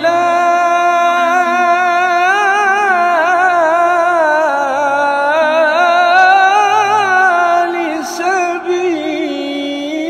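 A man's solo voice chanting an Arabic Islamic ibtihal, drawing the word 'al-halal' out into one long ornamented line that winds up and down in pitch. It eases lower and softer about eight seconds in.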